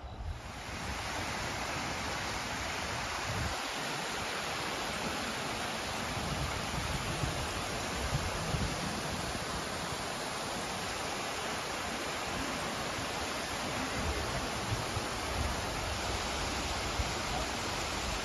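Shallow river water rushing over stones in a steady, loud rush, starting abruptly right at the beginning.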